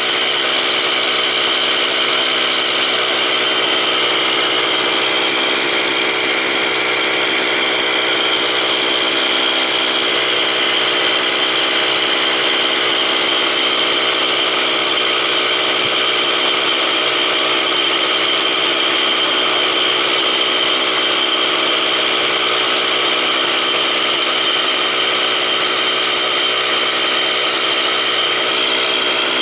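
O.S. 91HZ nitro glow engine for model helicopters running at a steady speed, with a high steady whine over its noise: the abnormal noise being checked.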